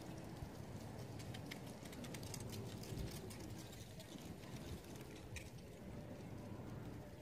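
Wind buffeting the microphone of a camera resting on the pavement: an uneven low rumble, with faint scattered ticks and clicks.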